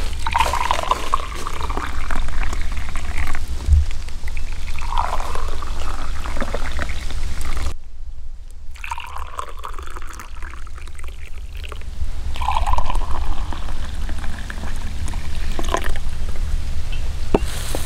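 A red drink poured from a glass teapot into glass mugs, one mug after another: several separate splashing pours with short gaps between them.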